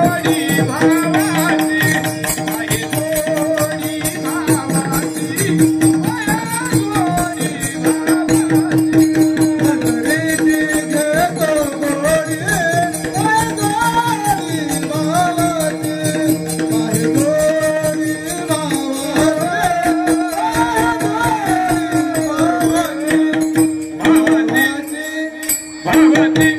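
Devotional kirtan music: a sung melody over a steady held drone, with fast, even percussion keeping the rhythm.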